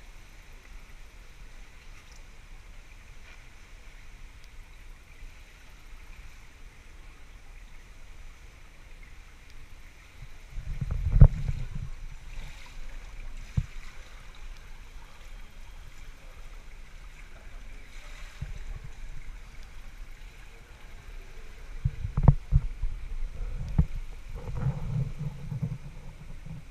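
Water lapping in a pool, with a splash and slosh about eleven seconds in as a freediver lifts his head out of the water at the end of a static apnea breath-hold. More low bumps and water movement come near the end.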